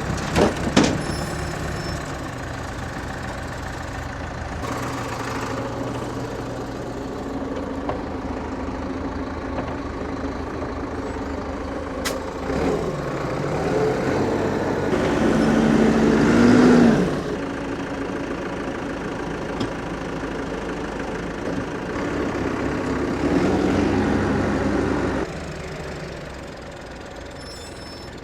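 Tractor engine running steadily, rising twice to louder stretches that each cut back suddenly: first building from about halfway through, then again near the end.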